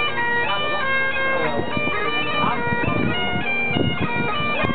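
Bagpipes playing a tune: held melody notes that change pitch over a steady drone.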